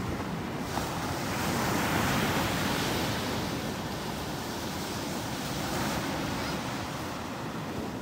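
Small Gulf of Mexico surf breaking and washing up a sand beach, a steady rush of water that swells a little about a second or two in.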